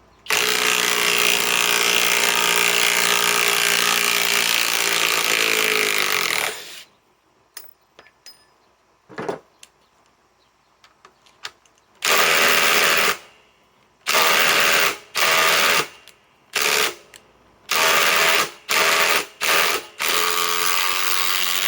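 Cordless impact tool hammering under trigger: one long run of about six seconds that winds down in pitch at the end, then a string of short trigger bursts, some under a second and some over a second long.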